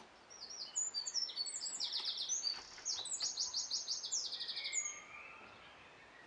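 A small songbird singing: a run of high chirps and fast trills, which stops about five seconds in.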